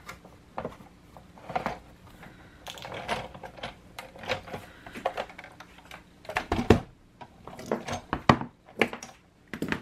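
Clicks, taps and knocks of plastic cutting plates and a die-cutting machine being handled and moved on a tabletop, with a few louder knocks about six and a half and eight seconds in.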